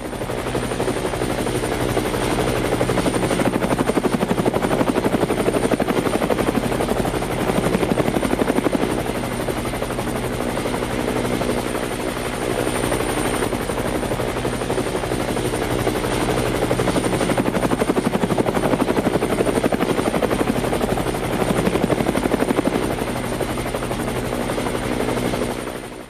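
Rotor aircraft whirring steadily, with a fast, even chop over a constant hum.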